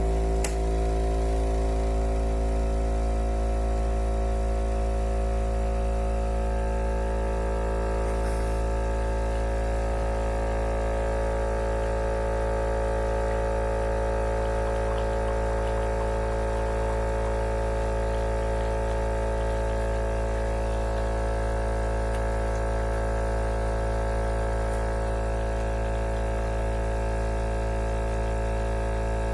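A loud, steady droning hum with several held tones above it, starting abruptly from near silence and unchanging throughout.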